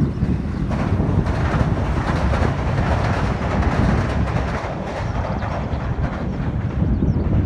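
Electric train passing over a railway bridge, a steady heavy rumble of wheels on rail that swells in the middle of the passage.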